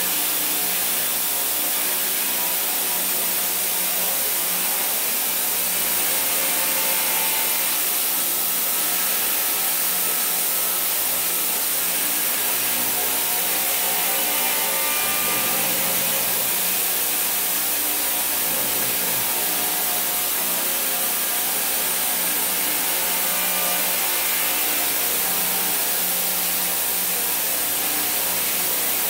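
Homemade belt sharpener, a 2-inch by 132-inch abrasive belt driven by a 2 HP motor at about 3,600 feet per minute, running and grinding the rust off a steel iceboat runner pushed along its flat tool-steel platen. The grinding hiss is steady and unbroken throughout.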